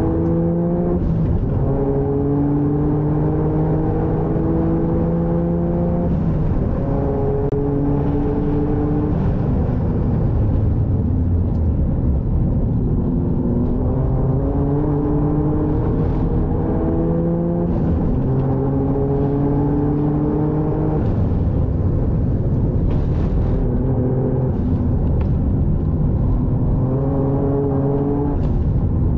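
Toyota GR Yaris's turbocharged 1.6-litre three-cylinder engine, heard from inside the cabin under hard acceleration on track. Its pitch climbs steadily through each gear and drops sharply at each upshift, several times over, with a stretch of lower, rougher running near the middle where the car slows for a corner.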